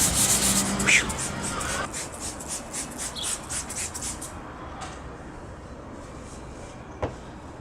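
Quick scrubbing strokes rubbing over a car's painted panel to lift paint overspray, a fast run of short hissy strokes that fades out about four seconds in, with a single sharp click near the end.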